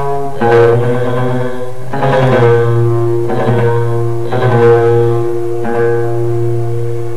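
A man singing an Arabic song through a microphone in long held phrases, with short breaks between them, over instrumental accompaniment with a steady low tone beneath.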